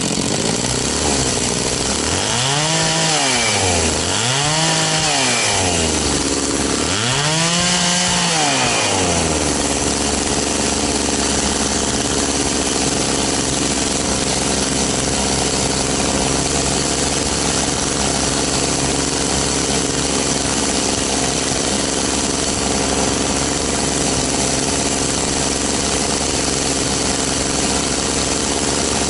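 Echo CS-670 two-stroke chainsaw engine running on the bench, revved up and let back down three times in the first ten seconds, then settling to a steady idle while its carburettor is being tuned.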